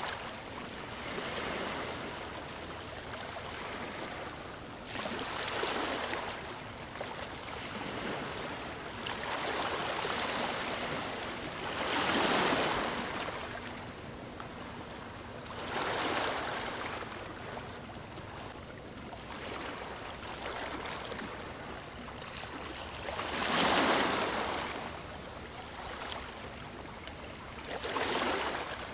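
Ocean waves breaking on a beach: surges of surf wash in every four to six seconds over a steady hiss of water, loudest about twelve seconds in and again near twenty-four seconds.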